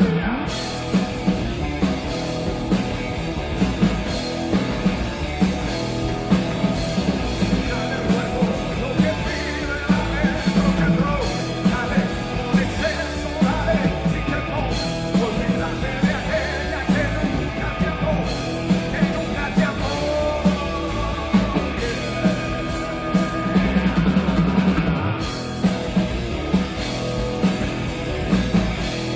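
Live rock band playing a fast, loud song: drums hitting at a steady driving beat under guitars, with a lead vocal sung over it.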